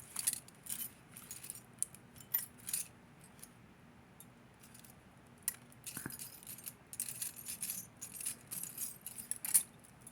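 Metal costume-jewelry rings clinking and jangling against one another as they are picked through and sorted, in short spells of light clinks with a lull around the middle.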